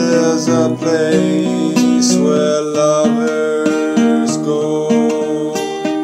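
Acoustic guitar strummed slowly in a ballad, with a man's voice singing long held notes over the chords.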